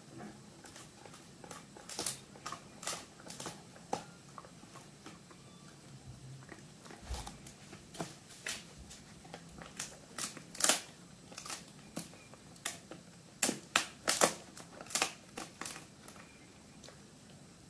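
Italian greyhound chewing a dried pig ear: irregular crunches and snaps as its teeth work the hard chew, coming thicker and louder in the second half.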